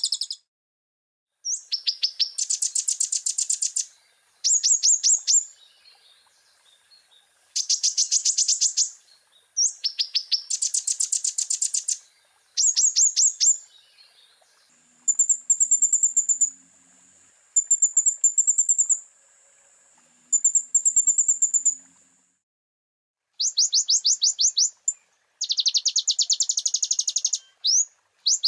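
A kolibri ninja (konin) sunbird singing: about ten bursts of fast, high, chattering trills, each a second or two long, with short pauses between.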